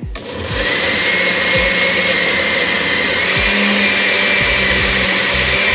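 Oster countertop blender starting up and running steadily at speed with a high whine over the motor, puréeing boiled tomatillos, onion, garlic and toasted chiles de árbol in its glass jar into a sauce.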